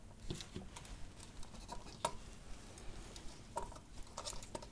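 Faint, irregular small clicks and taps of hand handling at a soldering job: a soldering iron and fine wires knocking against a small plastic calculator case and its power jack, with a few clicks close together near the end.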